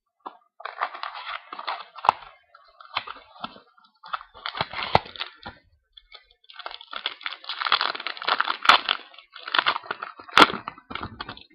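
Sealed trading card pack wrappers being cut and torn open: irregular crinkling and tearing of plastic wrap, with a few sharp snaps, the loudest about ten seconds in.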